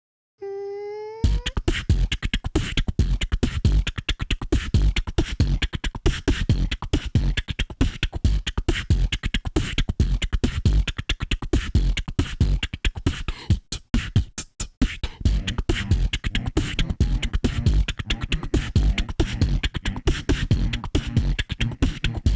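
Human beatboxing: a short rising voiced tone, then a fast, steady rhythm of deep mouth-made kicks and sharp clicks, breaking off briefly a little past the middle.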